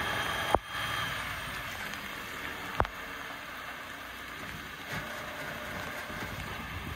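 Hook-lift truck lowering a flatrack loaded with a compact excavator to the ground: the truck's engine and hydraulics running, easing off about half a second in with a sharp metal clank, then another clank near three seconds as the rack settles. Steady rain patters throughout.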